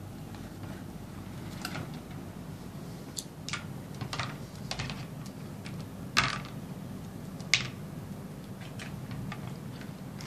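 Small plastic toy cases and doll parts clicking and knocking as they are handled on a tabletop: scattered light clicks, with two louder knocks about six and seven and a half seconds in.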